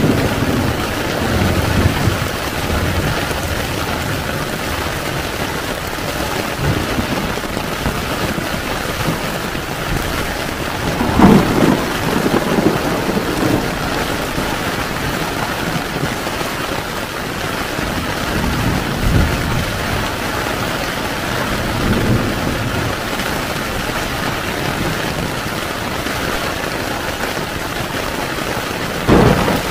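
Heavy rain falling steadily on a tent, with low rumbles of thunder swelling in several times; the loudest comes about eleven seconds in and another near the end.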